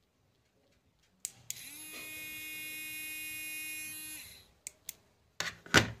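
Small battery-powered DC motor with a pencil fixed to its shaft, whirring for about three seconds: its pitch rises as it spins up and drops as it runs down. A couple of clicks come just before it starts, and a few light knocks follow.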